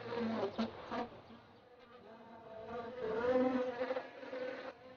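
Bee buzzing in flight, the hum wavering in pitch and loudness. It nearly drops out after about a second, then comes back louder.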